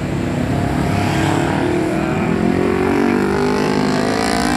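A road vehicle's engine accelerating past in street traffic, its pitch rising steadily for about three seconds.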